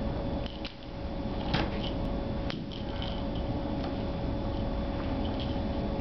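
Steady background hum and hiss, with a few light clicks about a second and a half and two and a half seconds in.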